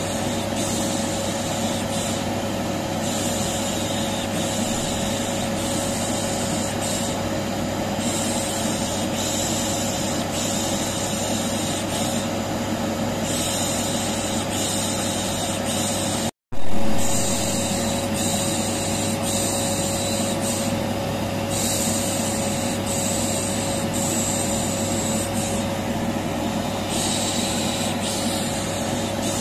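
Vacuum cleaner running steadily with a constant hum, and a rhythmic 'shh' shushing hiss laid over it, a white-noise loop meant to soothe a colicky baby. About sixteen seconds in, the sound cuts out for an instant and comes back briefly louder.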